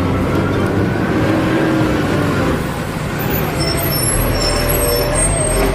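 Heavy truck engine running with a steady low rumble.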